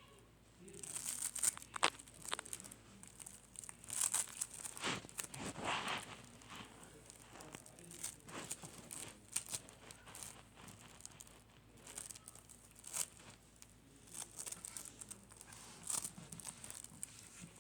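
Slime being handled and squeezed by hand, giving irregular crinkling, crackling and clicking pops, busiest about five seconds in.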